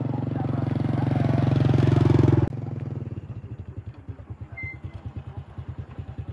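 Small step-through motorcycle riding toward the listener on a dirt track, its engine steadily growing louder until a sudden cut about two and a half seconds in. Then the motorcycle idles at a standstill with an even low putter.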